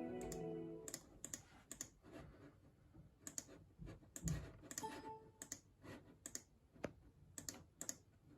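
Music fading out in the first second, then a string of faint, irregular clicks, roughly two a second, typical of keys or a mouse being pressed on a computer.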